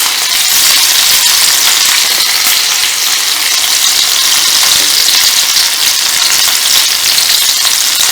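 Green chillies sizzling and spitting in hot smoking oil in a kadai, a steady loud frying hiss.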